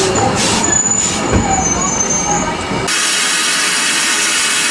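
Steam train running, heard from the carriage: wheels rumbling on the rails with a faint thin squeal. About three seconds in it cuts abruptly to a loud, steady hiss of steam from a small tank locomotive standing still.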